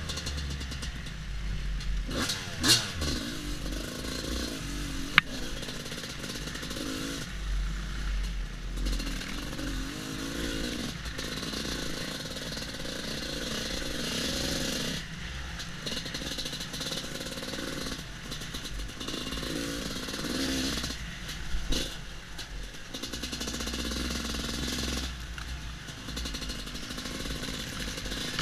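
Two-stroke Husqvarna WR250 enduro motorcycle ridden off-road, its engine revving up and falling back again and again as the rider works the throttle. There are a couple of sharp knocks in the first few seconds.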